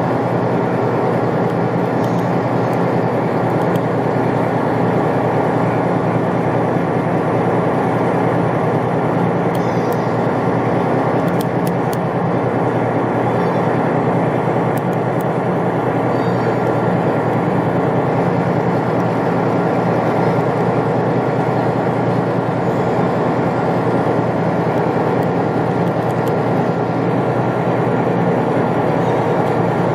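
Cruise boat's engine running steadily under way, heard on board as a constant drone over the rush of water and wind.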